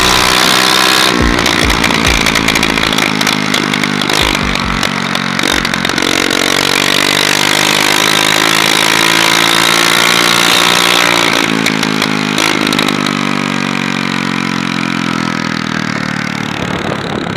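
Hero Maestro scooter's single-cylinder four-stroke engine running loud with no exhaust fitted, so its note comes straight from the open exhaust port. It is held at high revs, then the revs fall away over the last few seconds.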